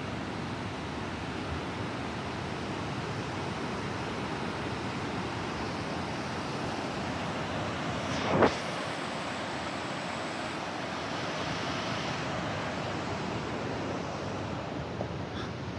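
Steady rushing of fast creek water in the canyon, with one sharp thump a little past halfway.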